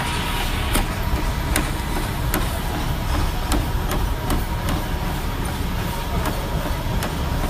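Gym treadmill running with its belt and motor noise, and the regular thuds of feet striking the deck as someone jogs on it.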